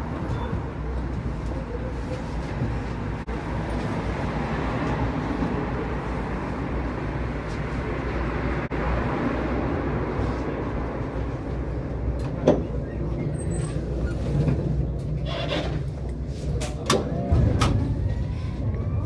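Tram running on its rails: a steady low rumble of wheels on track, with several sharp clanks in the second half. Near the end the rumble grows louder and a rising motor whine sets in as the tram speeds up.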